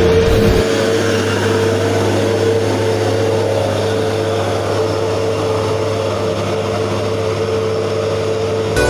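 Bus engine and road noise: a continuous rush with a steady droning tone running through it.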